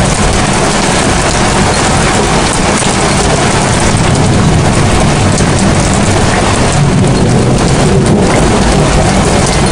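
Heavy rain, a steady loud hiss with a strong low rumble under it, picked up by a webcam microphone.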